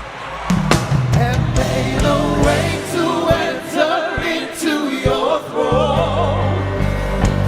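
Live gospel worship music: voices singing a slow melody over a band with bass notes and light drum strikes.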